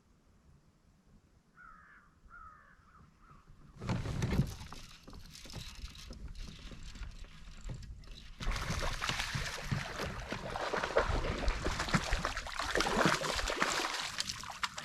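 Three short calls early on, then rustling, clattering and water noise from a fishing kayak and its gear. This noise starts abruptly about four seconds in and gets louder again about eight seconds in.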